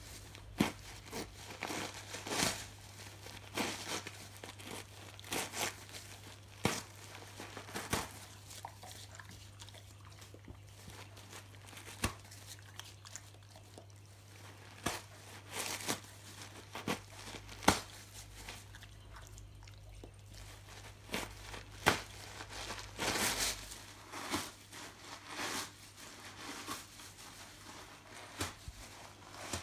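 A dog tearing and crumpling tissue paper with its teeth and paws: irregular crinkling rips and rustles, with a few quieter stretches between bouts.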